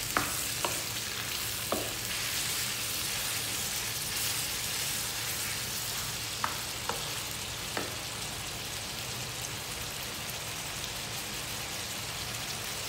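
Sliced meat and innards sizzling steadily as they brown in a frying pan, stirred with a wooden spatula that knocks sharply against the pan a few times.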